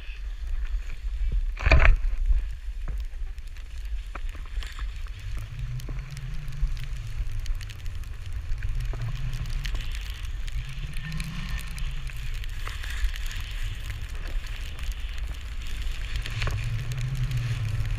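Skis swishing through snow on a run, swelling and fading every couple of seconds with the turns, over wind rumbling on the microphone. A sharp knock about two seconds in is the loudest moment.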